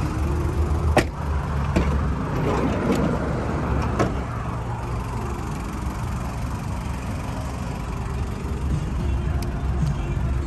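Toyota Granvia's 3.0 L 1KZ-TE turbo diesel idling with a steady low rumble. A few sharp clicks and knocks sound over it, the loudest about a second in.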